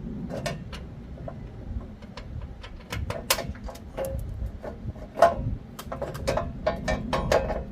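Irregular clicks and knocks of bolts and a belt cover being handled and fitted onto a power rake's belt housing, busier and louder over the second half.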